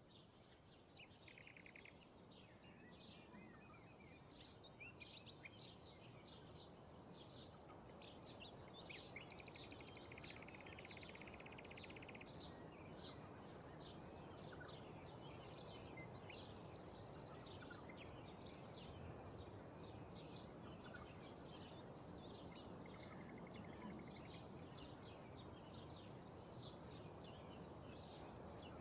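Quiet outdoor ambience of many small birds chirping and calling over a soft, steady rush of wind, which grows a little louder over the first ten seconds or so. A buzzy trill stands out about ten seconds in, lasting a couple of seconds.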